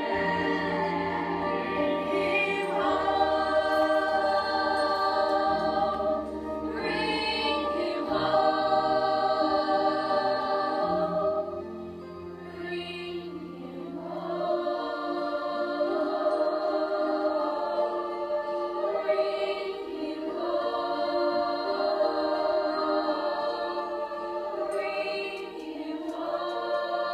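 A large choir of children and teenagers singing together over instrumental accompaniment with held low bass notes. The singing softens briefly about halfway through, then swells again.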